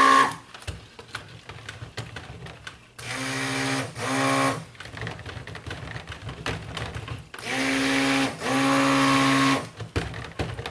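Stick blender pulsed in cold-process soap batter to mix in purple colorant: it cuts off at the start, then runs in four short bursts of about a second each, in two pairs, with the motor pitch rising as each burst starts. Light knocks come between the bursts as the blender head is moved around the plastic tub.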